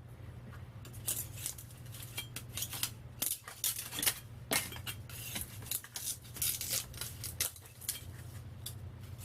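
Thin steel transformer laminations clinking and scraping against each other as they are worked loose from the iron core and set down, in many irregular metallic clicks. A steady low hum runs underneath.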